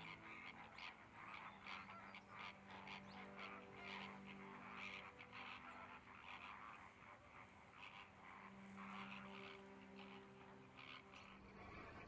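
Distant flock of flamingos calling: a faint, continuous chatter of many short calls overlapping one another.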